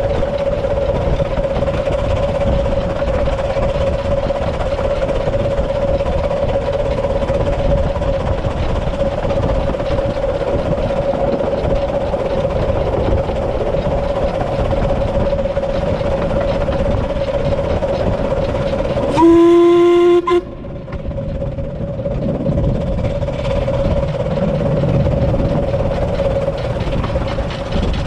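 The 15-inch-gauge 2-8-2 steam locomotive River Mite running along the line, a steady rumble with a constant high tone over it. About nineteen seconds in it gives one whistle blast, a little over a second long and the loudest sound.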